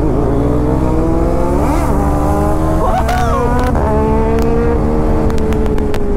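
KTM Duke 390 single-cylinder engine under hard acceleration, climbing in pitch through the gears with short dips at each shift, then holding and slowly easing off, over heavy wind rush. A string of sharp pops comes near the end.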